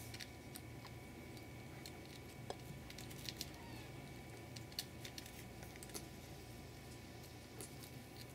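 Faint scattered soft clicks and rustles from kittens shifting about against the mother cat while nursing, over a steady low background hum.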